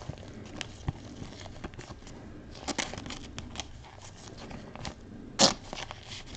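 Trading cards and their plastic and paper packaging being handled: light crinkling and scattered small clicks, with a sharper click about five and a half seconds in.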